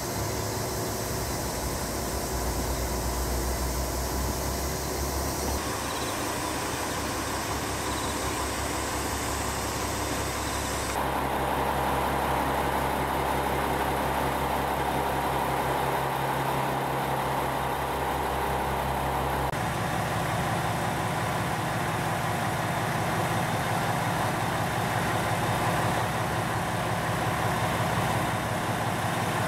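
Diesel railcars idling with a steady engine hum. The sound changes abruptly a few times.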